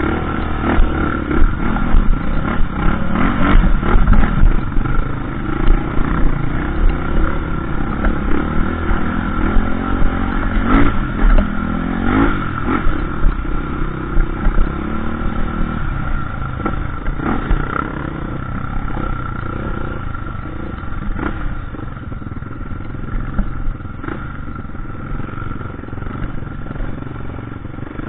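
Dirt bike engine running hard over rough trail, revving up with a rising pitch about halfway through, with frequent knocks and clatter from the bike and ground; it eases off somewhat in the second half.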